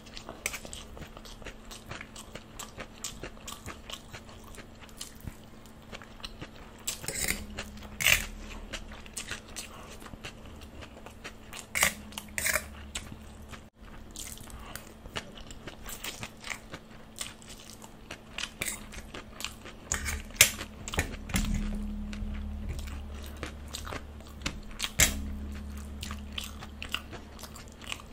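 Close-up chewing of a mouthful of chow mein noodles, with many short, sharp wet mouth clicks and smacks.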